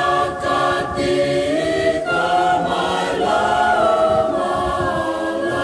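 Choir singing a hymn a cappella, several voice parts holding long chords.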